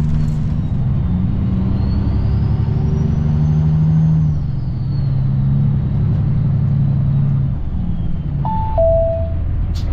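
Semi-truck's diesel engine heard from inside the cab, running steadily on the road, its note easing off about three quarters of the way through. Near the end a short two-note chime sounds, the second note lower.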